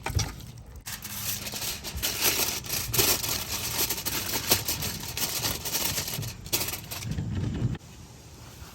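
Raw chicken pieces being mixed into a wet garlic, egg and flour marinade in a bowl: irregular squishing, rubbing and scraping, which falls away near the end.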